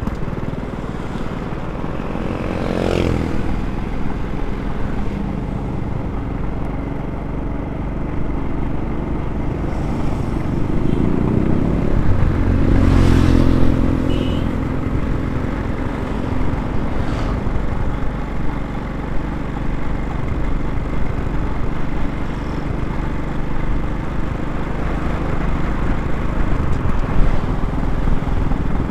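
Automatic scooter running on the road, its engine hum mixed with wind and road noise on a handlebar-mounted camera. There are louder swells about three seconds in and again around twelve to fourteen seconds in.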